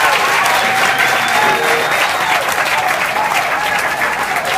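Audience applauding after a song, dense steady clapping with cheering voices over it.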